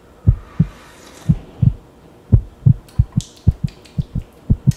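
Heartbeat sound effect: low double thumps, lub-dub, at about one pair a second, speeding up to about two a second from about three seconds in, as a suspense effect.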